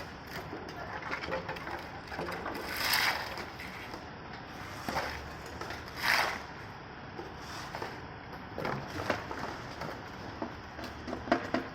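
Construction-site work sounds: scattered knocks and clicks over a steady background hum, with two louder scraping rushes about three and six seconds in.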